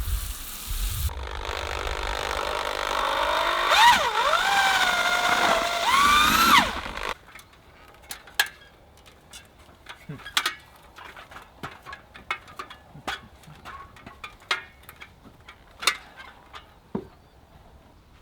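A power mixer's motor running while mortar is mixed, its pitch dipping about four seconds in and rising again, then cutting off suddenly about seven seconds in. After that come scattered light clicks and knocks of tools.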